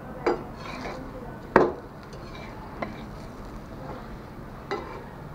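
Metal spatula clacking and scraping against a flat tawa griddle as a frying paratha is flipped and pressed down: a few sharp clacks, the loudest about a second and a half in.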